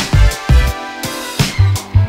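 Background music with a heavy, bass-driven kick-drum beat, in a hip-hop or R&B style.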